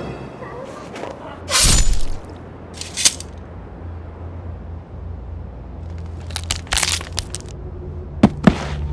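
Sound effects of blows striking a seal: a loud noisy burst about one and a half seconds in, a shorter one around three seconds, then a quick cluster of sharp strikes and two sharp snaps near the end, over a faint low hum.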